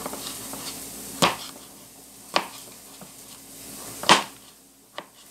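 Kitchen knife chopping a tomato on a plastic cutting board: several sharp knocks of the blade striking the board, three of them louder, roughly a second or more apart.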